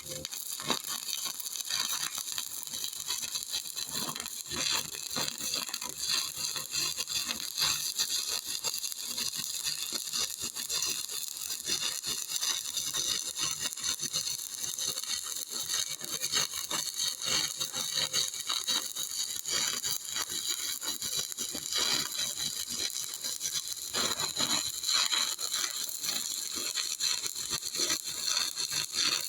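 Shielded metal arc (stick) welding arc from a 2.5 mm E7018 electrode running a horizontal fillet bead: a steady crackling hiss with many small irregular pops, unbroken throughout.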